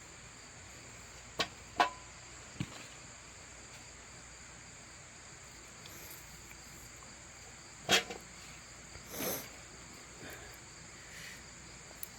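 Crickets chirring steadily and high-pitched, with a few sharp knocks and a short rustle from digging potatoes out of the soil by hand.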